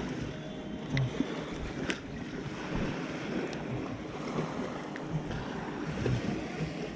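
Wind rushing over the microphone with small waves washing against the lake shore, and a couple of brief clicks about one and two seconds in.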